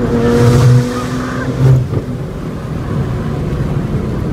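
Nissan GT-R R35's twin-turbo V6 and road noise heard inside the cabin at speed, with two louder surges in the first two seconds, then steady. The car is running in limp mode at about 10 psi of boost.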